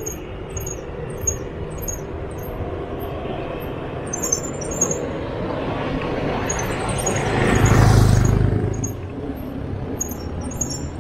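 A motorcycle approaches and passes close by. Its engine grows louder to a peak about eight seconds in, then fades, over a steady rumble of wind and tyre noise from the moving bicycle.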